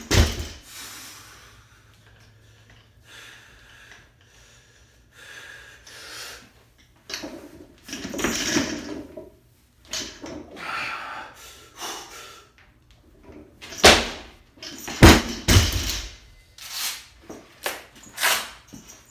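A barbell loaded to 315 lb with black rubber bumper plates is dropped after a missed jerk and slams onto the floor, bouncing with two heavy impacts a little over a second apart about two-thirds of the way through. Quieter knocks and bumps come before and after.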